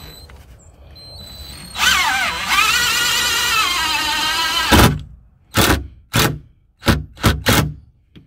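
Cordless drill boring a pilot hole through plywood into a wooden leg so the screw won't split the wood: the motor whine dips in pitch as the bit bites, then holds steady for about three seconds and stops sharply. Several short sharp sounds follow.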